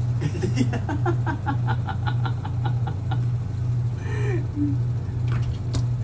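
Bathtub being scrubbed with a brush behind a closed bathroom door. The scrubbing strokes come quick and regular, about five a second, over a steady low hum. A short falling squeak comes about four seconds in, and the scrubbing starts again near the end.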